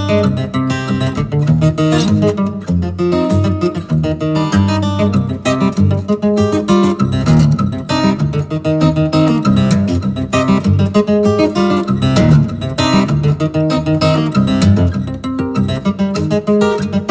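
Background music: acoustic guitar strumming and picking, steady and continuous.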